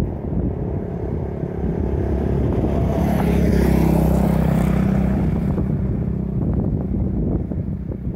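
A quad bike (ATV) driving past at road speed: its engine note grows louder as it approaches, is loudest about four seconds in, then fades away as it moves off down the road.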